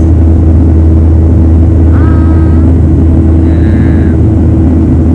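Jet airliner cabin noise in flight, heard from a window seat beside the engine: a loud, steady drone with a deep hum underneath.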